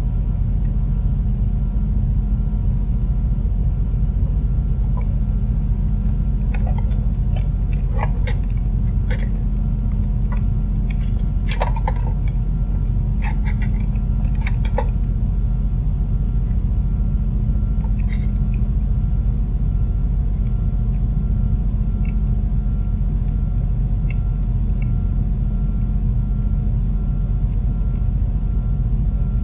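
A steady low rumble with a constant hum runs underneath. Scattered small clicks and taps, mostly between about five and fifteen seconds in, come from parts being handled while a circuit board is worked on with a soldering iron.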